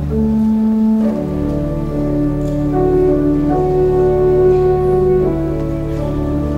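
Pipe organ playing slow, sustained chords, the upper notes moving about once a second over steady low bass notes.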